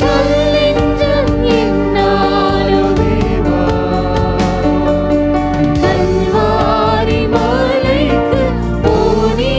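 Christian worship song: voices singing over steady instrumental accompaniment.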